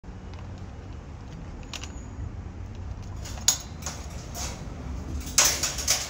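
Wire shopping trolley's coin lock and metal frame: a sharp click about three and a half seconds in, then a burst of metal rattling and clanks near the end as the trolley moves, over a low steady rumble.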